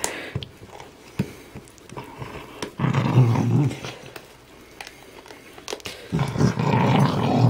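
Puggle growling low, in two bouts: a short one about three seconds in and a longer one from about six seconds in. It is the growl of a dog guarding her toy as a hand comes near.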